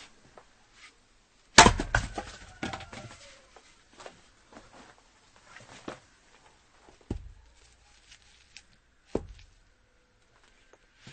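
An axe striking firewood: one loud blow about one and a half seconds in, followed by about a second and a half of clattering as the split wood falls. Two more single, duller knocks of wood come later, with faint small knocks in between.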